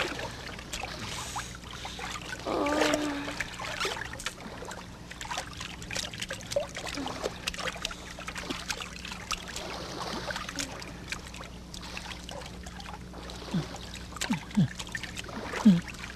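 Water splashing and lapping around a wooden outrigger boat, with irregular small splashes and a steady low hum underneath. A few short, sharper sounds come near the end.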